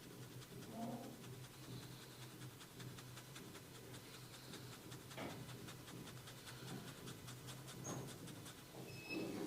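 Hands rubbing and scratching through hair on a person's scalp during a head massage: a faint run of quick, fine strokes with a few heavier rubs, over a steady low hum.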